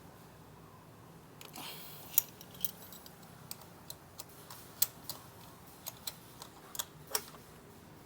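Scattered sharp metallic clicks and taps from hand tools at work on the frame slider's mounting bolts, a dozen or so at uneven intervals, starting about a second and a half in and stopping shortly before the end.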